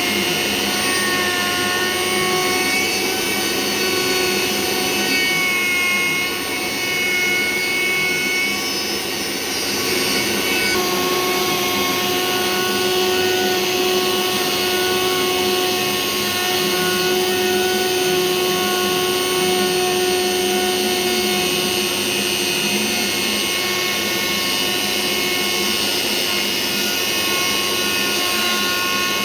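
Dremel rotary tool on a 3D-printed CNC machine running at high speed, its bit milling a carbon fiber sheet, with a vacuum hose drawing off the dust. A steady whine of several held tones, which shift in pitch about ten seconds in.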